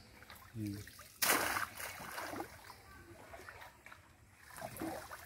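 Pond water splashing as a wet cast net is hauled up out of it: one loud burst about a second in that fades over the next second.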